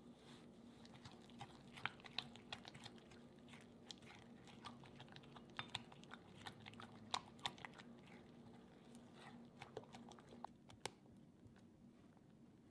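Hand balloon whisk beating cream cheese and sugar in a glass bowl: irregular soft clicks and squishy crackles as the wires knock the bowl and work the sugary paste, thinning out near the end, over a faint steady low hum.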